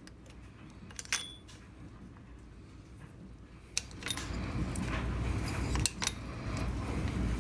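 A few light metallic clinks of a wrench against the chrome pushrod tubes of a Harley-Davidson Shovelhead engine as they are worked loose. Handling noise grows louder about four seconds in.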